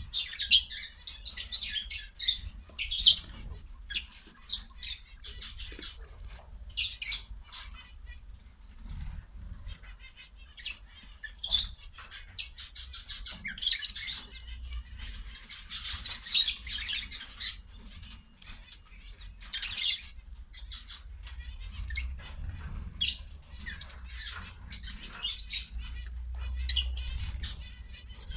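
Quail feeding: many short, irregular pecks and rustles in the seed, greens and litter, mixed with brief bird chirps.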